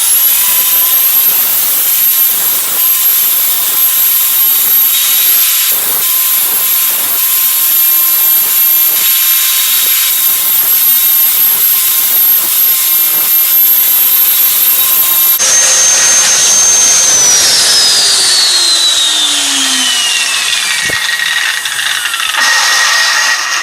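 Angle grinder spinning up with a quick rising whine, then running at a steady high whine while grinding the steel of a kitchen knife blade. About fifteen seconds in the sound changes, and a whine falls steadily in pitch over the next few seconds.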